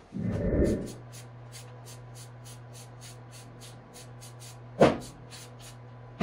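Steady low electrical hum with faint, rapid ticking about four times a second. A low thump comes at the start, and a sharp knock comes about five seconds in and again at the end.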